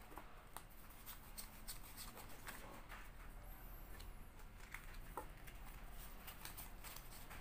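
Faint, irregular clicks and soft taps of a tarot deck being handled: the cards are split, cut into piles and set down on a cloth mat.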